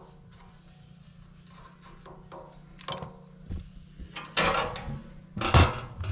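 North Woods Fabrication steel wood stove's door being swung shut and latched: two loud metal clanks, the second and louder about five and a half seconds in, after a faint click near three seconds.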